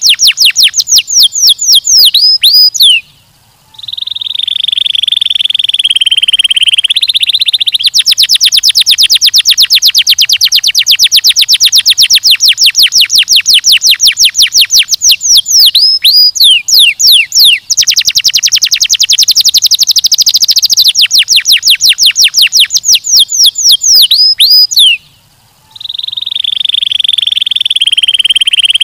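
Domestic canary singing loudly: long runs of rapid, evenly repeated high notes, broken twice by a lower, rolling buzzy phrase. The song stops briefly twice, about three seconds in and again near the end.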